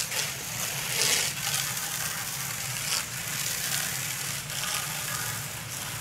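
Water from a hose spraying onto a freshly sawn board, washing the sawdust off, with a steady rush that surges a few times. A steady low hum runs underneath.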